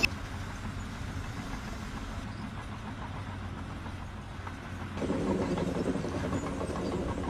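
An engine running steadily with a low hum, getting louder about five seconds in.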